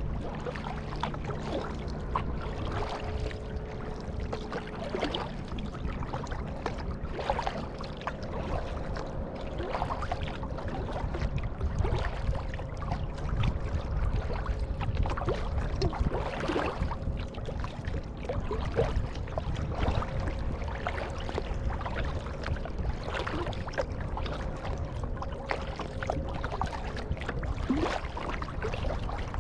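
Kayak paddle strokes dipping into the water about every two seconds, with water splashing and trickling off the blades over a steady rush of water against the hull. A faint steady hum runs underneath.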